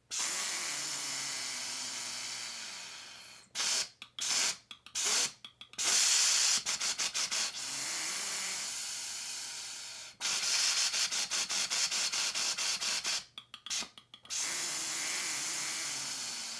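Breath rushing through a Breath Builder's straw: a long steady full inhale, then staccato articulation with the tongue cutting the exhale into short puffs, including a run of rapid, evenly spaced puffs. The puffs are a tonguing exercise meant to keep the ball afloat. A long steady breath follows and fades near the end.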